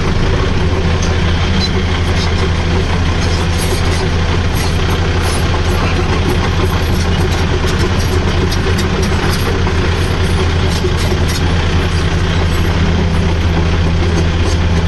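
A tractor's diesel engine running steadily with an even, low drone, heard from the driver's seat right beside its upright exhaust.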